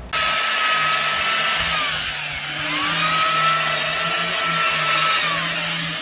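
Handheld electric chainsaw carving into a wooden block: a steady high whine over a low hum, its pitch sagging as the blade bites into the wood, about two seconds in and again near the end.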